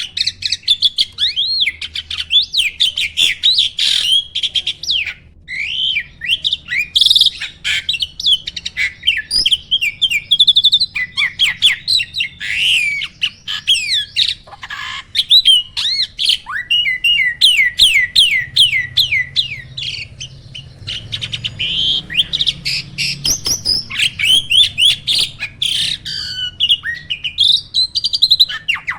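Starling singing an almost unbroken, loud song of rapid chirps and sliding whistles, with quick runs of repeated rising notes.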